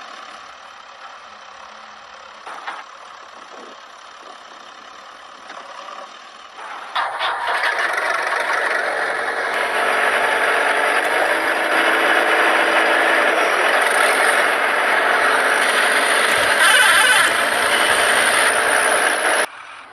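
Plastic toy dump truck loaded with soil being pushed over dry dirt, its wheels crunching and rattling loudly. It starts about seven seconds in and cuts off suddenly near the end.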